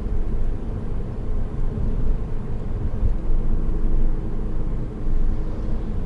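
Steady low road and engine rumble inside the cabin of a Honda Odyssey RB3 minivan driving along a road. A faint steady hum joins about halfway through for a couple of seconds.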